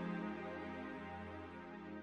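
The song's closing instrumental music fading out, held chords dying away steadily.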